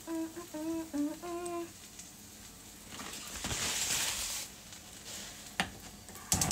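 A woman hums a short tune, and then a pan gives a brief hiss of frying. A single click follows, and near the end a gas stove igniter starts clicking rapidly as the burner, whose low flame has gone out, is relit.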